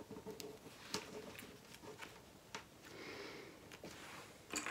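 Faint handling sounds of vinyl bag pieces and a zipper panel being laid and aligned on a work surface: soft rustling with a few light clicks.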